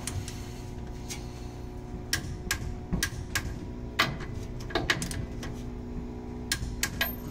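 Socket wrench on an extension tightening the nut of an aluminium busbar clamp connector: irregular sharp metallic clicks, sometimes in quick pairs, over a steady low hum.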